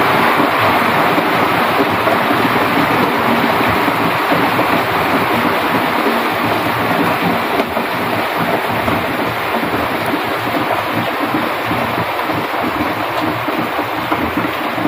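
Heavy rain falling steadily on trees, banana leaves and ground: a dense, even rush with no breaks.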